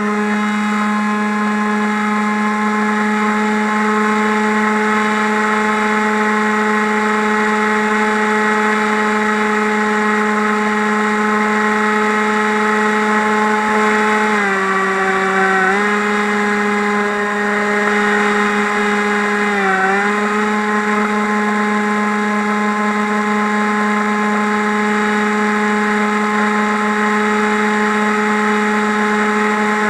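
FPV quadcopter's electric motors and propellers whining steadily at one high pitch, dipping in pitch twice around the middle as the throttle is eased off and picked up again.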